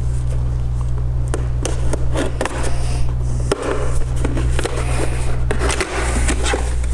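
Cardboard box and plastic packaging of a CPU being opened and handled: irregular crinkling, scraping and clicking over a steady low hum.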